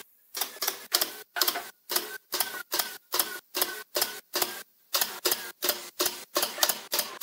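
A fast, even run of sharp clicks, about four a second, each with a short metallic ring, pausing briefly just after the start and again about two-thirds of the way through.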